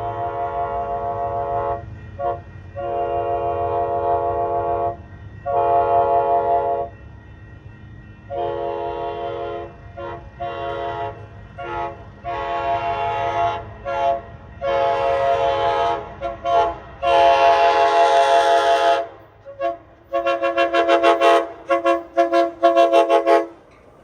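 Amtrak Pacific Surfliner train horn playing a horn show: a chord of several steady tones sounded in a long string of blasts of varying length. There is a long blast a little past halfway and a quick run of short toots near the end, over the low rumble of the train.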